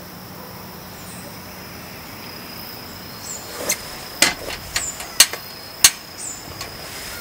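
Steady hiss of rain with a thin, constant insect drone, and about halfway through, a run of six sharp knocks spaced roughly half a second apart.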